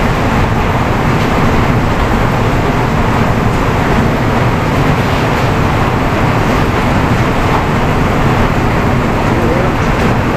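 Heavy rain pouring down in a steady, loud, unbroken rush during a flooding downpour.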